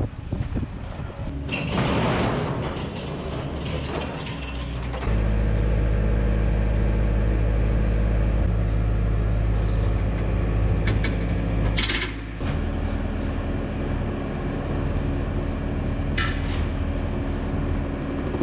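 Skid steer loader's engine running steadily, louder and steadier from about five seconds in, with a few short scrapes of a shovel in the loaded metal bucket.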